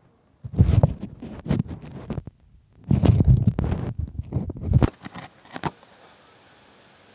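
Wind buffeting the microphone in irregular gusts, a low rumbling with crackles, dying down to a faint steady hiss about six seconds in.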